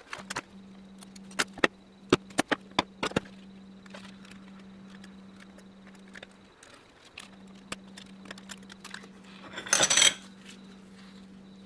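Steel and friction plates of a 4L80E transmission's overrun clutch pack clinking as they are handled and lifted out: a quick run of sharp metal clinks in the first few seconds, scattered lighter ticks, and a short louder rattle near the end, over a steady low hum.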